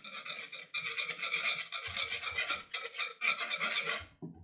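Wire whisk scraping rapidly around a speckled nonstick saucepan, whisking barbecue sauce with soda: a quick, rhythmic rasping that stops near the end.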